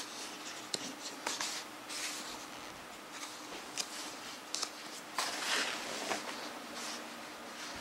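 Paper rustling and sliding as pages of a large, heavy hardcover book are handled and turned, with a few small clicks and taps; the longest swish of a page turning comes about five seconds in.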